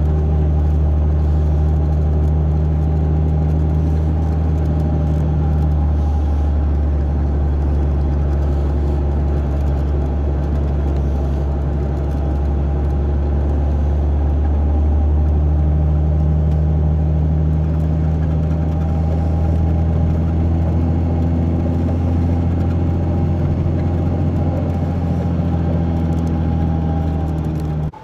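A road vehicle's engine and road noise heard inside the cabin while driving: a loud, steady low hum whose engine note shifts a few times.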